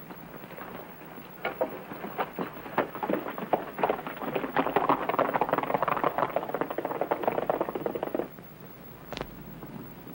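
Hoofbeats of two horses galloping away on hard ground, a quick clatter that grows denser and louder, then cuts off suddenly about eight seconds in. A single sharp click follows about a second later.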